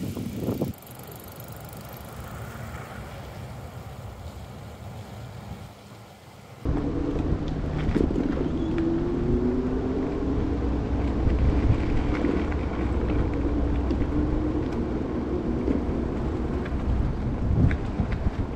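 E-bike on the move: steady low rumble of tyres and wind, quieter for the first few seconds, then louder. In the middle a faint whine rises slowly in pitch.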